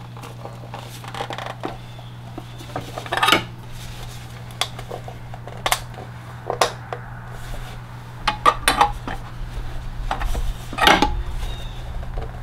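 Scattered light metallic clinks and knocks from a funnel with a flexible metal spout being handled against the tractor's engine at the oil fill opening. The strikes are irregular, the loudest about three and eleven seconds in, over a steady low hum.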